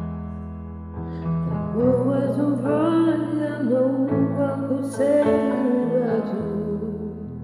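Slow ballad music: sustained guitar chords with a wavering, gliding melody line over them from about two seconds in.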